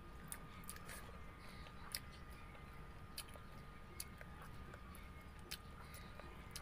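Close-miked eating sounds: a person chewing a mouthful of rice and pork, with scattered sharp wet clicks and smacks, over a steady low hum.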